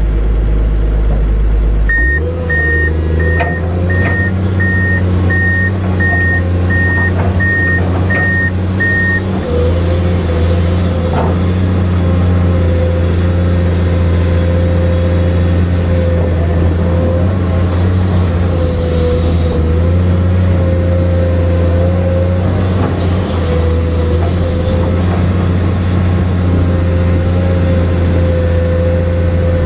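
Komatsu PC210 excavator's diesel engine running steadily under working load, with a wavering whine above its hum as the arm and bucket move through the sand. From about two seconds in, a beeping alarm sounds about ten short beeps in a row, then stops.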